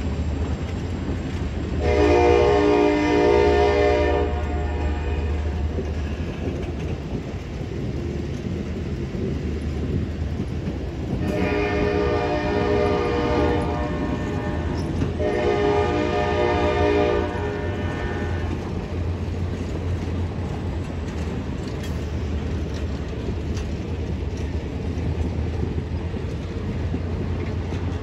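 K5LA five-chime air horn on the lead FP40H-2 locomotive sounding three long blasts, the first about two seconds in and the other two close together near the middle. Under it, passenger cars roll past with a steady rumble and wheel clicks over the rail joints.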